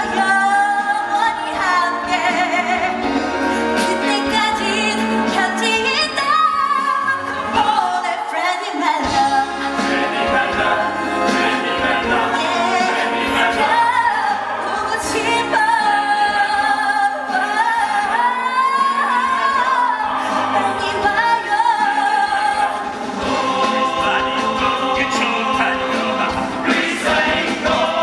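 A stage musical song number: singing with ensemble voices over backing music.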